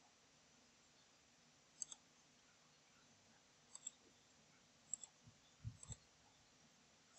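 Faint computer mouse button clicks, about five, each a quick double click sound, spaced a second or so apart as corner points are picked on screen, with a couple of faint low knocks near the end.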